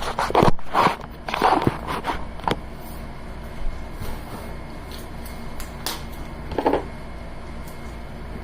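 A cardboard box being handled and opened: a quick run of scrapes and knocks in the first couple of seconds, then scattered light clicks and one short scrape near the end.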